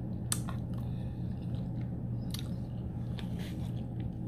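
Close-miked chewing of a mouthful of soft macaroni and cheese, with a few short wet mouth clicks, over a steady low hum.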